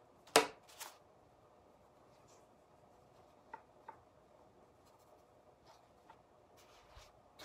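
Scissors cutting ribbon: one sharp snip about a third of a second in and a lighter second snip just after, followed by faint ticks and rustles of the ribbon being handled.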